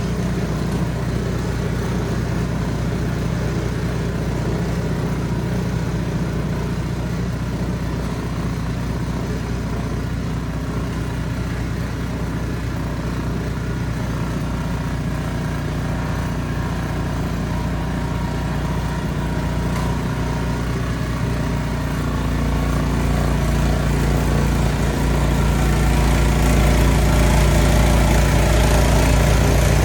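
Ariens Platinum SHO two-stage snow blower's engine running steadily, growing louder over the last several seconds.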